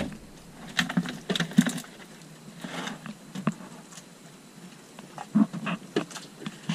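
Irregular light taps and knocks, a few coming in quick runs, bunched in the first three seconds and again near the end.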